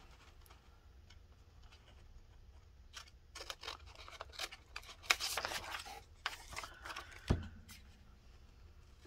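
Scissors cutting paper and paper being handled: scattered snips and rustles after a quiet start, with a soft thump near the end.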